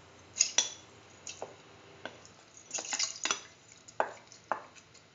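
Utensils clinking and knocking against a metal pressure cooker pot as washed rice is tipped into the mung bean and water mixture: a string of sharp, irregular knocks, a few each second.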